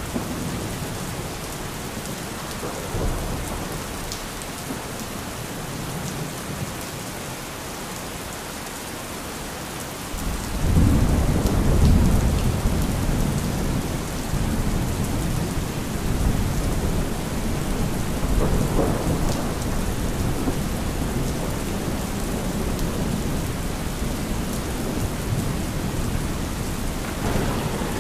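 Thunderstorm: steady rain hissing, with thunder. A loud low rumble of thunder breaks in about ten seconds in and rolls on, swelling again later and once more near the end.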